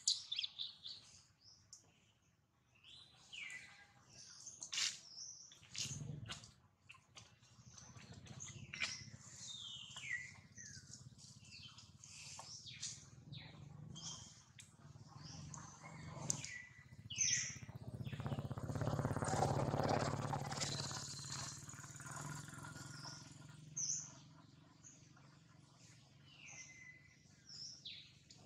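Small birds chirping over and over in short calls that sweep down in pitch, with scattered clicks. A rushing noise swells and fades about two-thirds of the way through.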